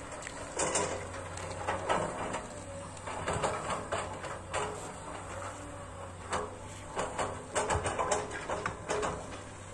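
Distant hydraulic excavators at work: a steady low diesel hum with irregular sharp clicks and knocks.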